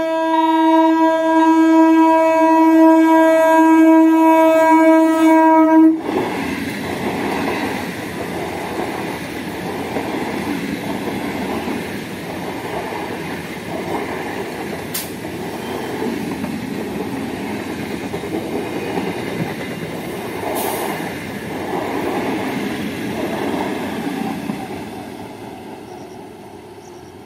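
Electric multiple-unit local train sounding one long, steady horn blast that cuts off suddenly about six seconds in. The train then runs past with a continuous rumble and a regular clatter of its wheels over the rail joints, which fades near the end.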